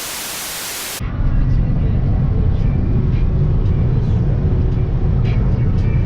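A burst of hissing static lasting about a second, then a steady low rumble like a running vehicle.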